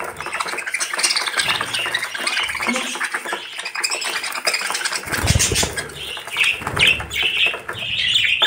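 Budgerigars chattering and warbling in a fast, scratchy stream, with a run of short, high chirps in the second half and a few low thumps about halfway through.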